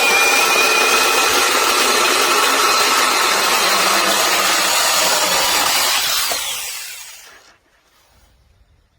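Cordless 6-inch brushless mini chainsaw running and cutting wood, a steady motor whine over the chain noise. About six seconds in the motor is released and winds down, and the sound dies away within about a second and a half.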